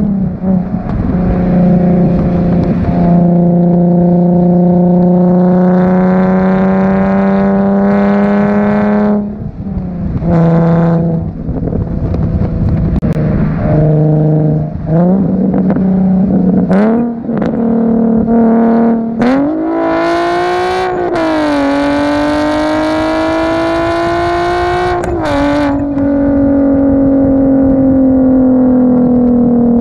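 Nissan 370Z's 3.7-litre V6 heard from outside the moving car through a Tomei Expreme Ti titanium exhaust. It cruises with a steady note that steps down in pitch a few times, then pulls with a steadily rising note for about five seconds in the last third before dropping back to a steady cruise.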